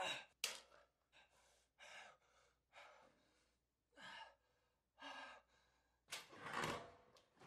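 A wounded man breathing hard in pain through clenched teeth from a gunshot wound: two sharp gasps at the start, then short ragged breaths about once a second, and a longer, heavier breath near the end.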